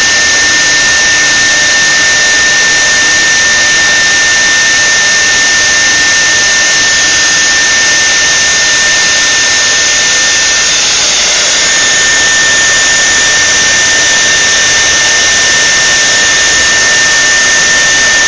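The spindle of a three-axis CNC router running at high speed: a loud, steady high-pitched whine over a constant hiss.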